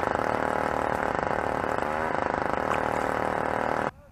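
An engine running steadily, with a brief wavering in pitch about two seconds in; it cuts off abruptly near the end.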